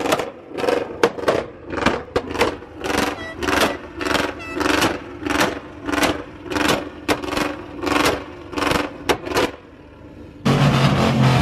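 Voices of a crowd in short bursts, about two a second. Then, after a sudden cut near the end, a loud vehicle engine running steadily.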